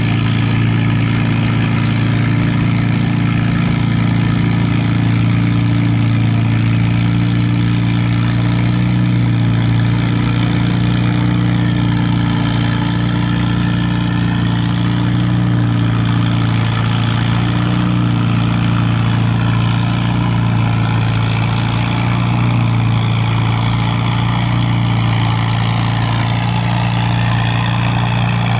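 Antique farm tractor engine running loudly at a steady, even speed, its low note holding almost unchanged.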